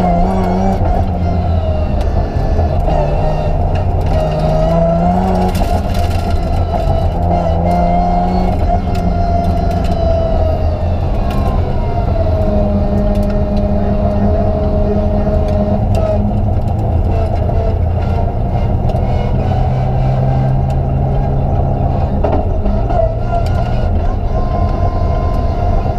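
BMW 325 Group A rally car's straight-six engine heard from inside the cabin, driven hard along a stage: the engine note climbs and drops again and again as it revs through the gears and lifts for corners.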